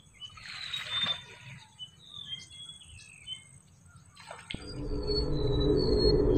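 Small birds chirping with short gliding calls, and a brief hiss about a second in. About two-thirds of the way through, background music fades in and swells to be the loudest sound.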